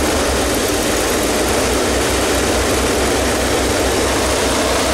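Chevy 350 small-block V8 idling steadily shortly after starting, with an even low pulsing. It is running with oil pressure up, about 30 psi on the new gauge.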